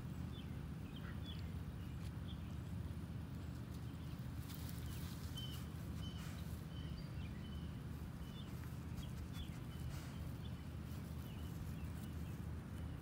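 Quiet outdoor ambience: a steady low rumble under faint, short, high bird chirps that come every second or less through the middle, with a few soft rustles.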